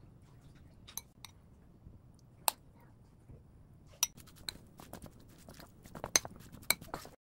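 Metal spoon clinking against a glazed ceramic bowl while mixing rice: a few separate clinks, then quicker, louder clinks and scraping in the last three seconds as the rice, cockles and sauce are stirred together.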